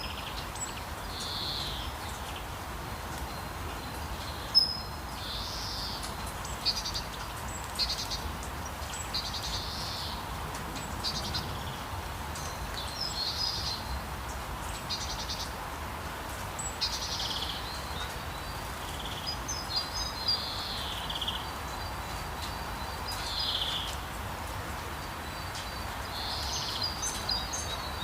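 Steady rain, with birds chirping and trilling every second or two over it.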